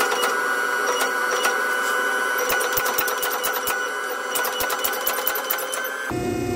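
Hydraulic forging press running: a steady electric pump drone with a high whine, and irregular light clicks and taps as hot steel is worked between its dies. About six seconds in, the drone drops abruptly to a deeper hum.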